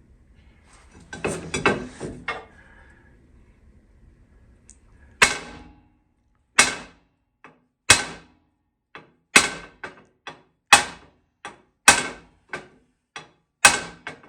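A hammer striking metal, knocking the old wheel studs out of a Ford 9N tractor's wheel hub: sharp, ringing blows that start about five seconds in and come roughly once a second, with lighter taps between.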